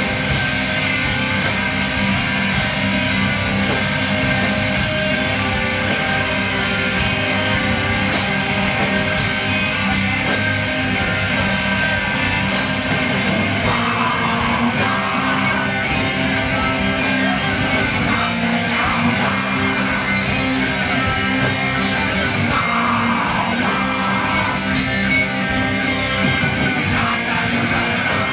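Black/death metal band playing live: distorted electric guitars and bass over drums with rapid, regular cymbal strikes, with a harsh vocal coming in at times.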